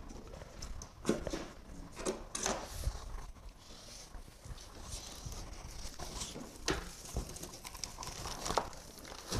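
Cardboard shipping box and its inner packing being handled: irregular rustling, scraping and light knocks of cardboard as flaps are folded back and pieces are reached into and moved.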